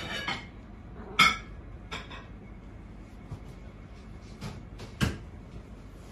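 Several light knocks and clinks, one to two seconds apart, the loudest about a second in, over steady low background noise.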